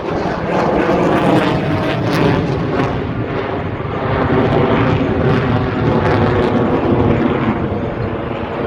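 F-22 Raptor's twin turbofan jet engines, loud and sustained as the fighter flies its display, with a ragged crackle running through the noise.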